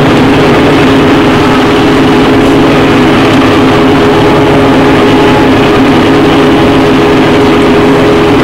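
Combine harvester running steadily under load while harvesting, its engine and machinery heard from inside the cab as a constant hum.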